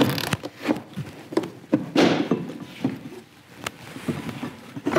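Ski-Doo snowmobile drive belt being handled and worked onto the clutch pulleys by hand: scattered knocks and clicks of rubber and metal, with a short scraping rub about two seconds in.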